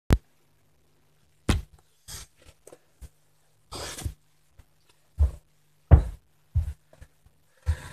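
Handling knocks and rustling as a phone is set down and steadied on the floor, then several thumping footsteps about two-thirds of a second apart. A faint steady low hum sits underneath and stops near the end.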